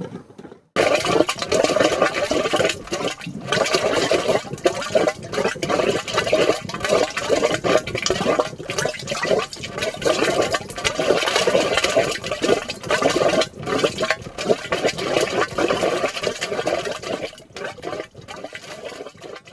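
Gas bubbling up through thick mud in a mud volcano: a busy run of irregular gurgling bursts that cuts in sharply about a second in and fades out near the end.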